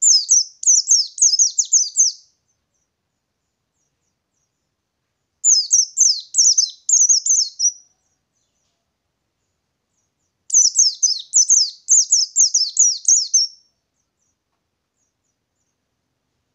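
White-eye (pleci) singing three bursts of its rolling song, each a rapid run of high, downward-slurred notes lasting two to three seconds, with silent gaps between them.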